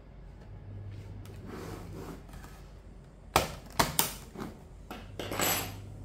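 Plastic snap clips of an Acer Spin 1 laptop's bottom cover clicking loose as the case is pried apart with a metal pry tool: about four sharp clicks past the middle, then a short scrape of plastic near the end.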